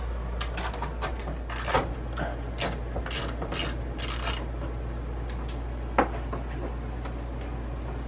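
Screwdriver backing out the small screws of a microwave's door switch holder: light metal clicks and scraping for about four seconds, then a single sharp click about six seconds in, over a steady low hum.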